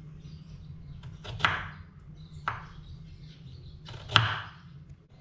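Kitchen knife cutting through a raw carrot onto a wooden cutting board: three sharp knocks, the loudest about four seconds in, over a steady low hum.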